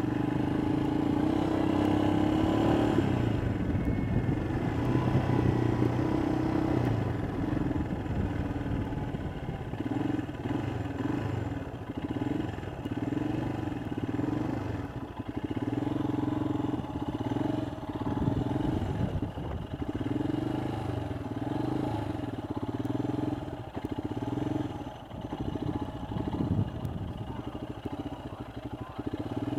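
A Royal Enfield Himalayan's 411 cc single-cylinder engine running on the move, its note rising and falling with the throttle.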